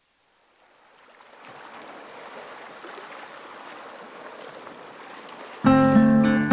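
A hissing wash of noise, with the rush of running water, fades in and holds steady. Strummed guitar music then comes in abruptly, loud, near the end.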